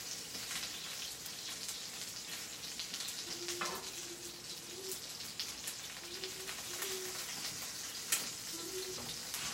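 Sausages sizzling and crackling as they fry in a skillet, with a few sharper clicks.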